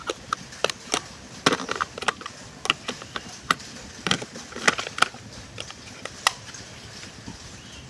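Irregular sharp clicks and knocks, a plastic toy car being handled, over a steady background hiss.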